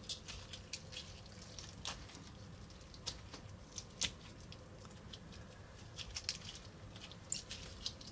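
Glowing glue-and-borax slime, stiff like soft putty, squeezed and kneaded by hand. It makes faint, irregular wet squishes and small sticky pops.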